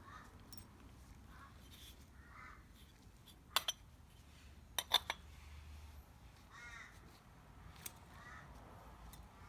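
Crows cawing several times, faintly. Two quick sets of sharp clicks, the loudest sounds here, come a little over a third of the way in and again about halfway.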